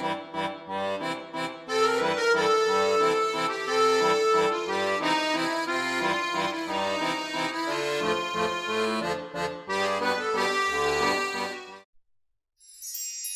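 Background music: a melody played over held chords, which stops abruptly about twelve seconds in. After a short gap, a faint high shimmering sound comes in near the end.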